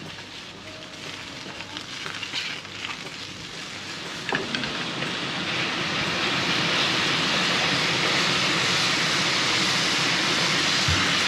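Food frying in a pan: a sizzling hiss that grows louder over the first six seconds or so, then holds steady, with a couple of light knocks in the first half.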